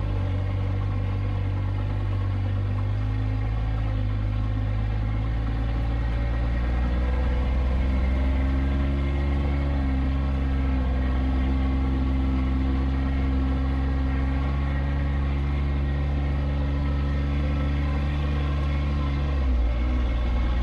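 Motor vehicle engine running steadily as it drives along, its note stepping up a few seconds in and again around eight seconds, then dropping suddenly near the end as the engine speed changes.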